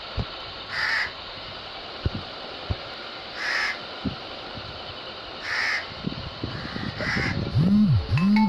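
Crow cawing, four harsh single caws about two seconds apart: alarm calls, the crows protesting a cat that has killed a rat. Near the end come two louder, low rise-and-fall swooping sounds.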